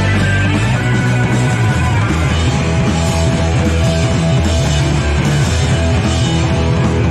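Punk rock band playing live, loud and continuous, with guitar and drums.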